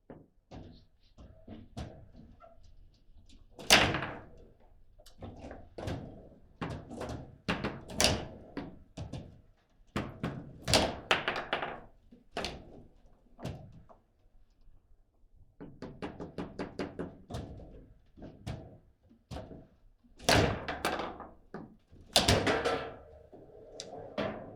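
Table football in play: a long, irregular run of hard knocks and thuds as the ball is struck by the figures on the rods and bangs against the table, with a few much louder hits among them.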